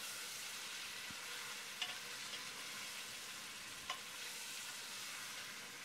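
Venison shanks, onions and spices frying in an aluminium pressure cooker, with a steady soft sizzle as the mixture is stirred. Two light knocks of the stirring spoon against the pot come about two and four seconds in.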